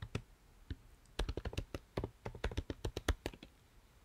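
Keys typed on a computer keyboard: a couple of separate keystrokes, then from about a second in a quick run of clicking keystrokes that stops a little after three seconds, as a terminal command is typed and entered.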